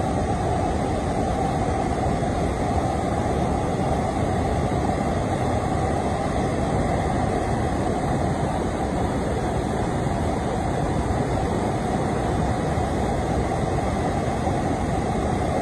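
Waterfall rushing: a loud, steady roar of falling water, deepest in the low range and unchanging throughout.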